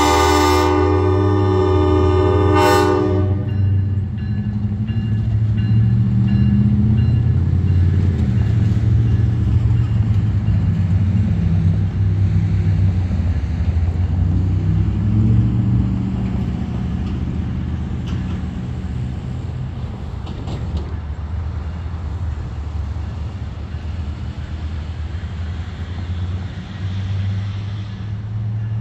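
SERA 2666 diesel locomotive sounding its Nathan K5LA five-chime air horn, which cuts off about three seconds in. After that the locomotive's diesel engine runs on steadily as it moves away, slowly fading.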